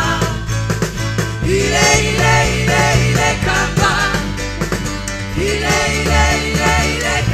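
Live gospel praise band playing, with electric guitar, bass and keyboard under singers' voices and a strong bass line.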